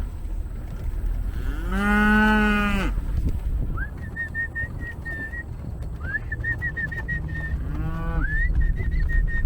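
Beef cattle mooing: one long moo about two seconds in and a shorter one near the end. A thin high whistling tone comes in and out from the middle on, over a steady low rumble.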